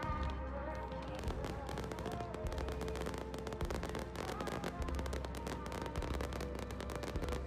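Fireworks display: a dense, rapid crackling of many small bursts, with deep booms about once a second, and music playing steadily alongside.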